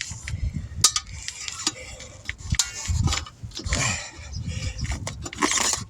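Irregular clinks, knocks and scrapes of metal against metal.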